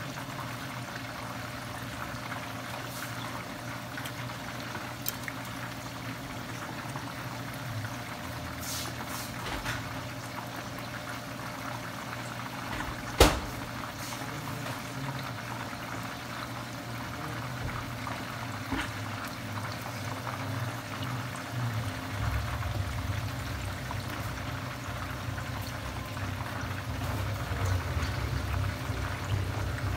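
Chicken pieces deep-frying in hot oil in a pan, a steady sizzle and crackle of bubbling oil. A single sharp click about halfway through, and a low hum that grows louder in the last third.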